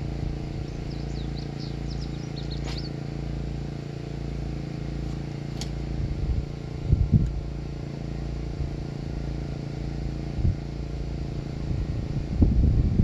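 Breeze buffeting the microphone, a steady low rumble with stronger gusts about halfway through and near the end. A small bird chirps a few times in the first few seconds.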